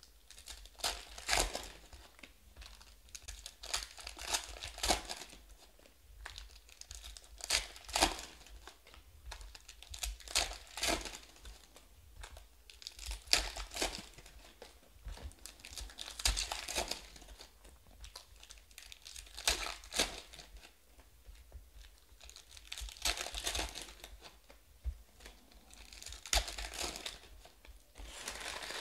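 Foil trading-card packs (2020 Panini Prizm Draft Football) being torn open and crinkled by hand, with the cards handled out of them. The crinkling comes in repeated bursts every second or two.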